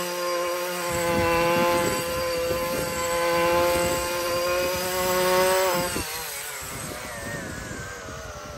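Husqvarna 128R brushcutter's small two-stroke engine running at high revs while cutting, its level rising and falling every second or two. About six seconds in the revs fall away and the engine drops to a lower, quieter note.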